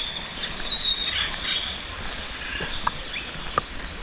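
Songbirds chirping and calling over a steady outdoor hiss. There are several short falling notes and, around the middle, a fast trill of repeated high notes.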